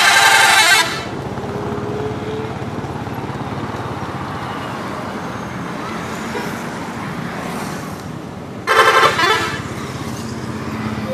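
Bus 'telolet' musical air horn: a loud blast lasting about a second right at the start, and another about nine seconds in, with steady background noise between.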